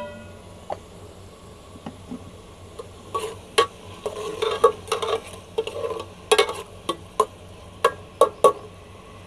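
A metal spoon stirring sliced onions frying in oil in an aluminium pot: from about three seconds in, a run of sharp clicks and scrapes of the spoon against the pot over a light sizzle. A short metallic ring from the lifted pot lid fades right at the start.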